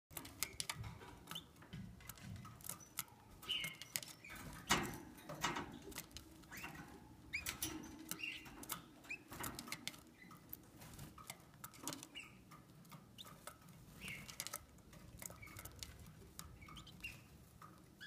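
A female Gloster canary giving short, soft chirps about every second, with scattered clicks and taps as it moves about its wire cage.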